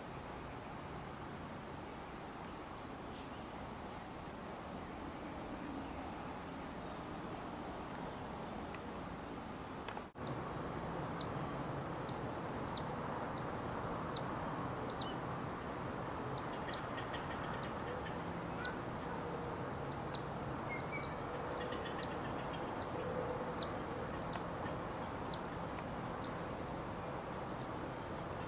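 Insects keep up a steady high buzz with faint, quick chirping. After a brief dropout about ten seconds in, a bird gives short, sharp, falling chip calls about once a second, the loudest sounds here.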